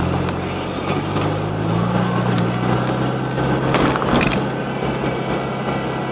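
Car engine and tyres on a snow-covered road, heard from inside the cabin. The engine's hum rises a little about two seconds in, and a short cluster of knocks and rattles comes about four seconds in.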